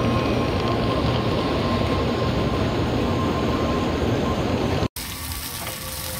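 Train running: a steady, loud rumble with a faint whine, which cuts off sharply about five seconds in. A quieter steady hiss follows.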